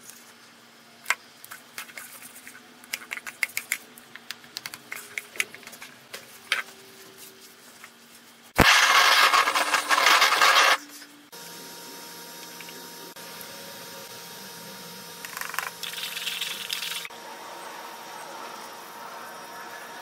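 Handheld gas torch lit with a sharp click and hissing for about two seconds as it is passed over freshly poured epoxy resin to pop bubbles. Before it come scattered small clicks, and after it a steady faint hum.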